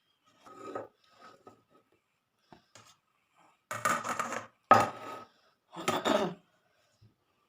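Dishes being handled at a meal: a few faint clinks, then louder scraping and clattering of a plate and food in the second half, with one sharp clink near the middle.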